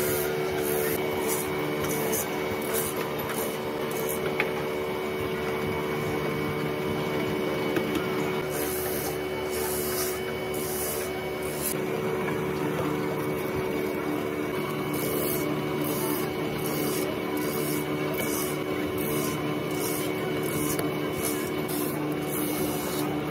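Electric coconut-grating machine running steadily: a constant motor hum with a repeated rasping scrape as coconut is shredded.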